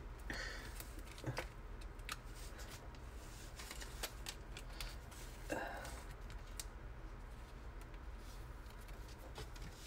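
Trading cards being handled and slipped into clear plastic sleeves: faint, scattered clicks and rustles of card and plastic, with a short louder rustle about five and a half seconds in. A low, steady hum lies underneath.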